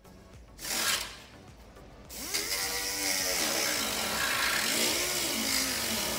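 A power tool starts up about two seconds in and keeps running, its pitch sliding up and down.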